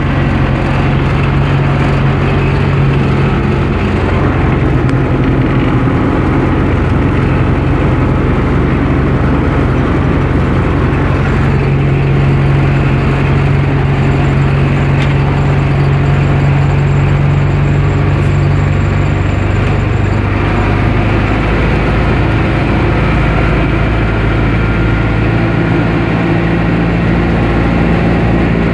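U-651 tractor's four-cylinder diesel engine running steadily as the tractor drives, heard from inside the cab. Its note drops a little about two-thirds of the way through.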